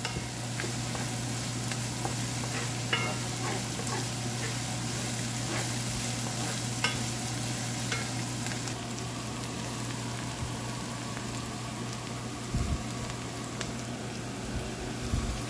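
Diced onion and crushed garlic sizzling steadily in hot coconut oil in a stainless frying pan as they sauté toward light brown, stirred with a wooden spatula that scrapes and ticks against the pan now and then.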